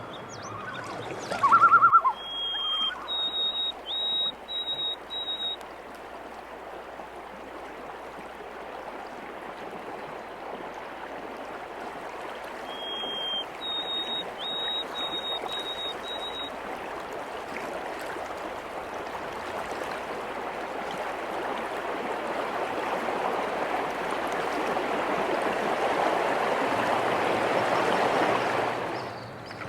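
Flowing water running steadily, growing louder over the second half and dropping away near the end. Twice a bird whistles a short clear song over it: one slightly lower note followed by several higher, even notes.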